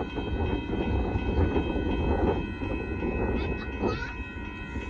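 Union Pacific grain train approaching: a steady low rumble from the freight train running on the rails, with faint steady high tones over it.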